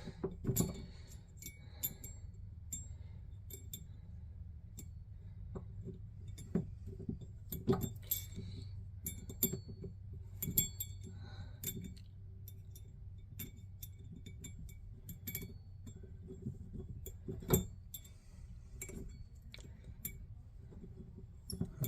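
Allen wrench clicking and clinking against the metal handle of a Delta single-handle faucet while a stubborn set screw is worked loose. The clicks are sharp and irregular, one louder about seventeen seconds in, over a low steady hum.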